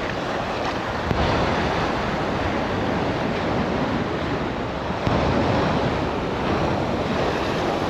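Ocean surf washing steadily, with wind buffeting the microphone; two small knocks, about a second in and about five seconds in.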